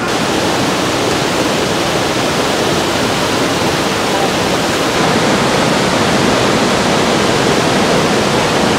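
Waterfall and the white-water rapids below it: a loud, steady rush of water.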